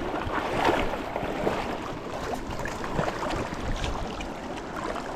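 Creek water running steadily, with a few faint ticks and small splashes.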